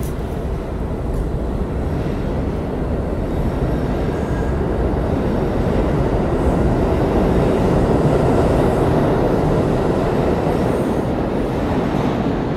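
Subway train running through a station, heard from aboard: a steady rumble and rush of wheels on rail that grows louder toward the middle and eases slightly near the end.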